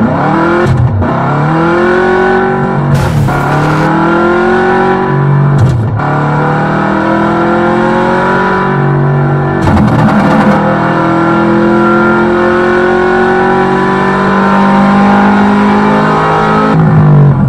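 Onboard sound of an electric 1/10 short-course RC truck at race speed. The motor and drivetrain whine rises and falls in pitch as the throttle opens and closes, with a few short hits as the truck bumps and lands.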